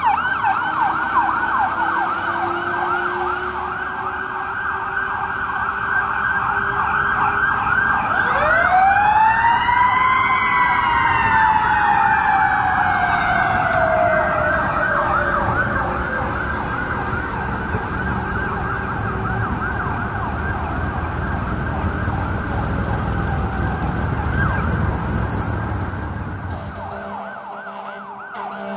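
Fire engine's electronic siren in a rapid yelp over the low rumble of the truck. About eight seconds in, a Federal Signal Q mechanical siren winds up, peaks and then slowly coasts down. The sound changes abruptly near the end.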